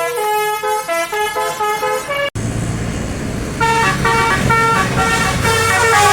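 Bus telolet horn playing a melody of short, stepped musical notes. About two seconds in, the sound cuts abruptly to a steady engine rumble with road noise. A little over a second later the horn melody starts again over the engine.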